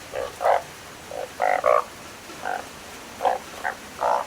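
Frogs or toads croaking: about nine short calls at irregular intervals, some overlapping, over a steady hiss.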